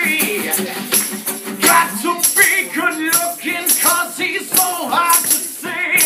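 Live acoustic music: a strummed steel-string acoustic guitar with a man singing, and a hand shaker rattling along in rhythm.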